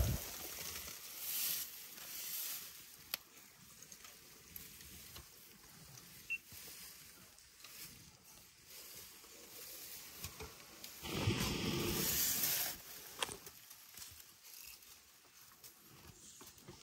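African elephants feeding at close range, with faint scattered clicks and rustles. Short rushing noises come about one and two seconds in, and a louder rushing noise lasting over a second comes about eleven seconds in.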